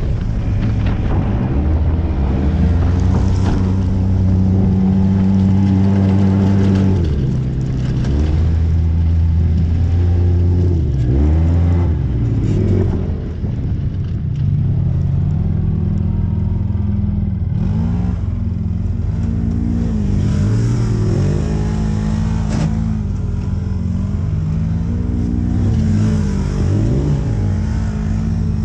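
Polaris RZR S side-by-side's engine driving hard on a trail: held at high revs for several seconds at a time, then revving up and down repeatedly as the throttle comes on and off.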